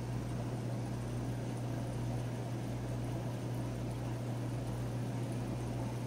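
Steady low hum under an even hiss, the running noise of aquarium pumps and filtration.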